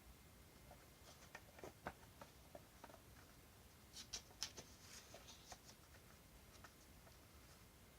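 Faint handling noises: scattered soft clicks and light rustles of packaging or a case being handled, with a brief cluster of sharper ticks about halfway through.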